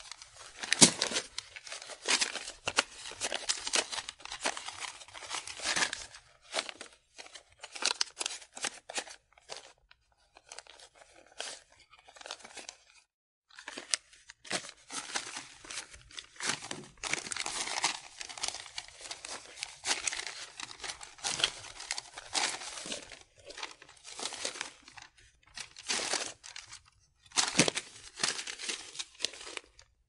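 A stack of paper banknotes being riffled and counted by hand: a crisp crackling rustle in quick flurries, with short pauses between runs and a quieter stretch about a third of the way in.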